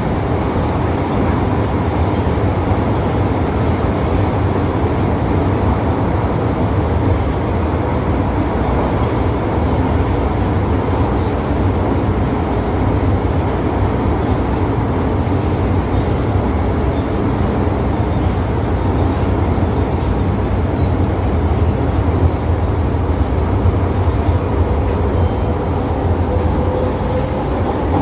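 1979 Metro-Cammell first-generation MTR M-Train (CM Stock) running at speed, a steady rumble of wheels on rail and running gear.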